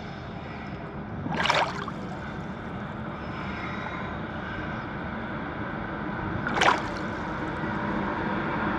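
Pool water lapping, with two short gurgles of exhaled air bubbles breaking the surface, about a second and a half in and again near seven seconds: small, controlled releases of breath from a swimmer held underwater.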